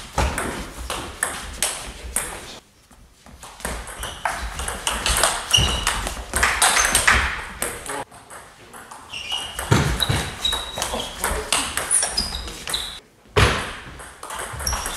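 Table tennis rallies: the ball clicks back and forth off bats and table in quick irregular ticks, some with a short high ping. The rallies break off briefly twice, about a third of the way in and near the end.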